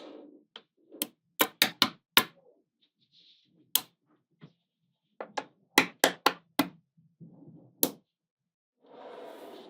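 Small magnetic balls snapping together with sharp clicks, several in quick succession and then a second run a few seconds later, with soft rustling of the balls being handled in between.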